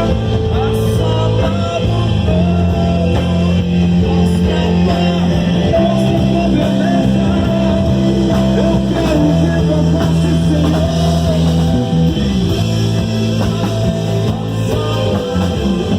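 Live worship band playing: electric guitars, bass, keyboard and drum kit, with long held chords changing every few seconds over a steady bass line.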